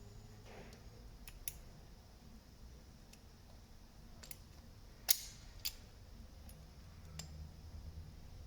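Scattered sharp clicks and taps of small hand tools and parts being handled during soldering work, the loudest pair about five seconds in, over a faint low hum.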